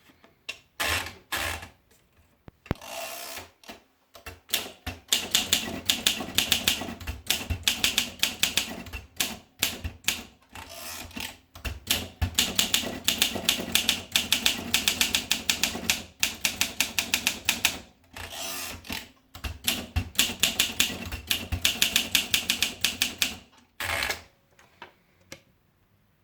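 Olympia SM2 manual portable typewriter being typed on: quick runs of sharp keystroke clacks in several bursts, with short pauses and a few separate mechanism clicks between them.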